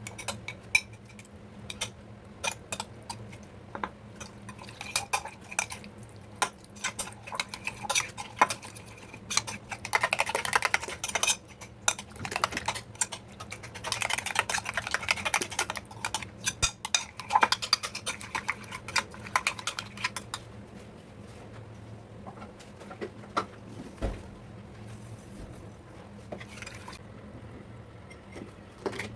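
Metal spoon clinking and scraping against a dish while raita ingredients are prepared and stirred: scattered sharp clicks throughout, with two busier stretches of rapid clatter in the middle.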